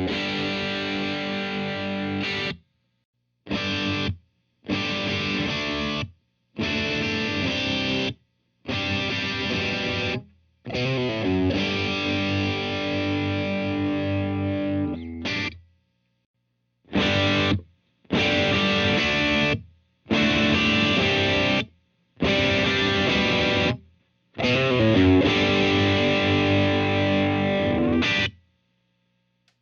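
Distorted electric guitar played through a Blackstar Studio 10 6L6 tube combo amp. It plays short chord phrases, each one to four seconds long, that stop dead into silence between them.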